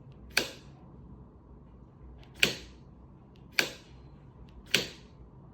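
A wall light switch being flipped, giving four sharp clicks at uneven intervals, each with a short ring-off.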